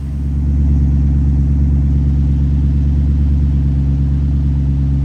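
Range Rover V8 idling through a muffler-deleted exhaust: a loud, steady, deep drone that cuts in suddenly at the start and holds without revving.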